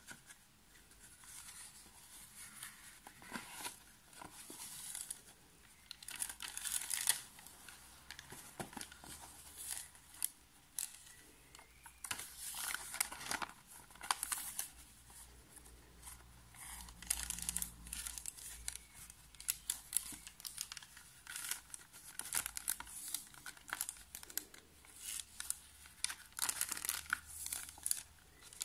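Paper pages and thin translucent sheets of a handmade collage book rustling and crinkling as they are lifted and turned by hand, in many short irregular rustles.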